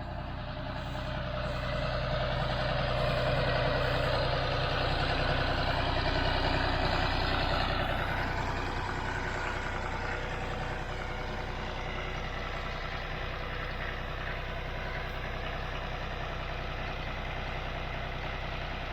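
John Deere 5055D diesel tractor engine running steadily. It grows louder over the first few seconds and settles a little lower about eight seconds in.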